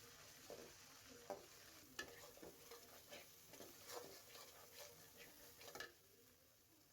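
Jujube pickle being stirred in a cooking pan: irregular scrapes and clicks of a utensil against the pan, stopping about six seconds in.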